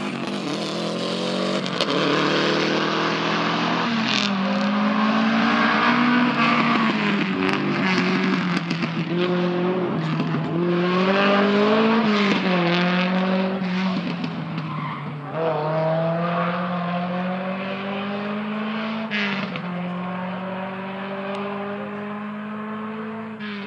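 Rally car engine revving hard, its pitch rising and falling again and again with sharp drops at gear changes and lift-offs. It is loudest in the middle and fades toward the end as the car pulls away.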